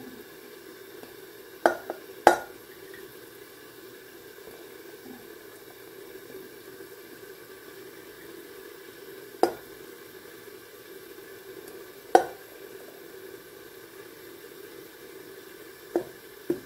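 Seafood pilaf base stewing in a lidded frying pan, a steady sizzle, while a plastic spatula knocks sharply against the pots about six times as boiled rice is scooped into a cast-iron pot.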